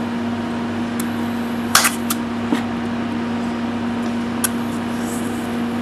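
Electropolishing a stainless steel weld with an electrolyte-soaked carbon fibre brush: a steady electrical hum with a few sharp crackles at the brush, the loudest just under two seconds in. The crackles are the tiny hydrogen-bubble explosions that, by the builder's account, show the solution is still strong.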